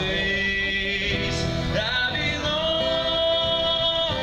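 Live country music from a small band, amplified over PA speakers: guitars and a man singing long, held notes.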